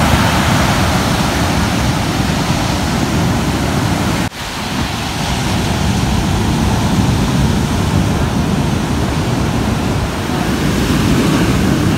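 Ocean surf breaking on a beach: a steady, loud wash of noise that dips briefly about four seconds in.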